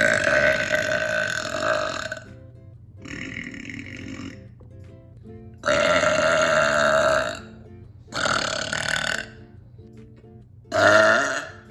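A woman's loud burps, five in a row with short pauses between them. The first lasts about two seconds and the second is quieter. Background music with a steady beat runs underneath.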